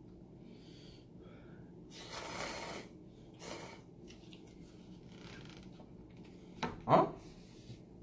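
Slurping of Chinese seafood instant cup noodles: four short slurps of a second or less, the longest and loudest about two seconds in. Near the end there is a short, sharp thump, the loudest sound.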